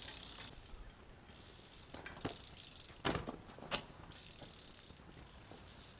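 BMX bike on concrete: a few short, sharp knocks and clacks as the rider gets back on and starts riding, a pair about two seconds in and a louder pair a second later.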